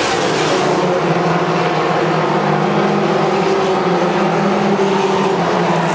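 Race car engines running at speed on the track, a loud steady drone of several cars together.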